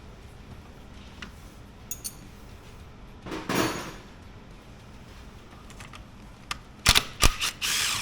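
Hand tools clinking and clattering against metal parts in a car's engine bay: a few light clicks, a short scrape, then a cluster of sharp metallic knocks near the end.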